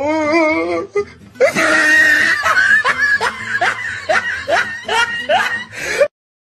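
A meme laugh sound effect: a brief wavering pitched voice, then a person laughing in a long run of quick, repeated rising bursts, which cuts off suddenly about six seconds in.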